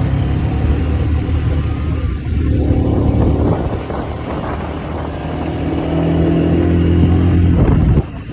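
ATV engine running and revving, its pitch climbing twice, before it drops away suddenly near the end.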